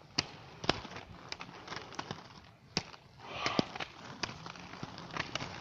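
Roller skates clacking on pavement: irregular sharp knocks and clicks, with a brief rush of noise about three and a half seconds in.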